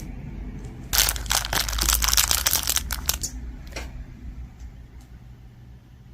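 Plastic bag crinkling and rustling for about two seconds as it is handled, followed by a single click and a few faint taps.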